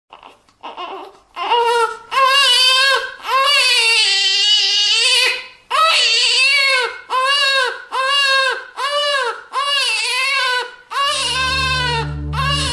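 Baby crying: faint at first, then one long wail and a string of short, rising-and-falling wails in quick succession. Music with steady low notes comes in near the end.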